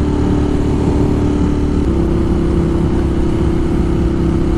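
Ducati Monster 1200 R's L-twin engine running steadily under way through a Termignoni exhaust, heard on the rider's mic; the engine note steps up slightly about two seconds in and holds.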